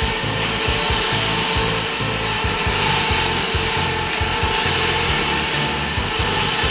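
Small electric winch motor running steadily under remote control: a constant whine over a rasping gear noise.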